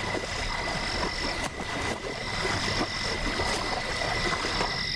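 Chorus of swamp frogs calling at night, with a steady high-pitched trill over a dense background of calls.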